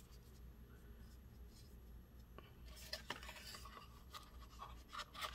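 Faint handling sounds of a plastic earbud case cover being taken off and turned over: light scratching and rubbing with a few small clicks, busiest about three seconds in and again near the end.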